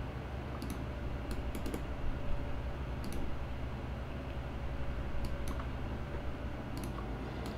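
Scattered sharp computer-mouse clicks, a dozen or so in small groups, as chess moves are made on screen, over a steady low room hum.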